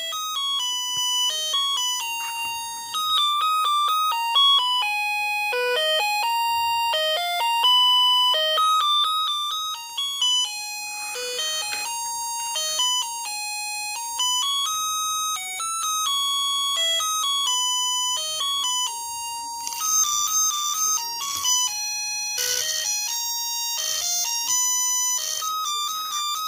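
UM66 melody-generator chip playing its doorbell tune through a small speaker driven by a BC547 transistor: a single line of thin, buzzy electronic notes stepping up and down in pitch. Some hiss rides over the notes in the last few seconds.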